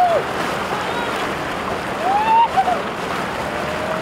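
Steady wind and water noise with a few drawn-out voices calling out: one at the start, one about two seconds in, and a long held call near the end.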